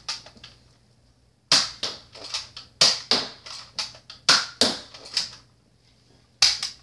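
Nerf Zombie Strike Hammershot blaster being cocked and fired: a series of sharp plastic clicks and snaps, several in quick pairs, as the hammer is pulled back and released.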